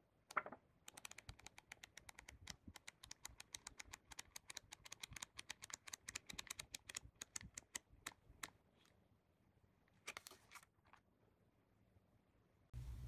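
Paper flipbook pages flicking off the thumb one after another in a fast run of soft ticks, about eight a second, lasting several seconds, followed by a brief paper rustle as the book is handled.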